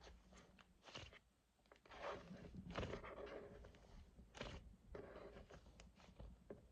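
Cloud slime being squished and stretched by hand, giving soft, crackly, irregular swishes.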